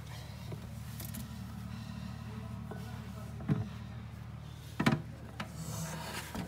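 A few short knocks and clatters from work on a dented aluminium motorcycle pannier with a hammer and a wooden block, the strongest a quick double knock a little before five seconds, over a steady low hum.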